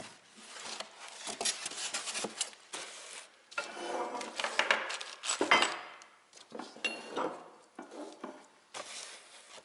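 Metal parts of a mini tire changer being handled, clinking and knocking against one another, with a few short metallic rings.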